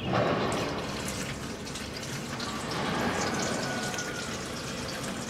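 Diesel fuel pouring and glugging out of an upended plastic drink bottle into a compressor's fuel tank filler, a steady pour.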